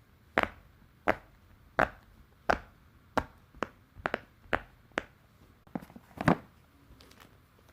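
Sharp clicks from a handheld fidget toy being worked with the fingers. Four evenly spaced clicks about 0.7 s apart are followed by a quicker, uneven run of about eight more, the loudest near the end.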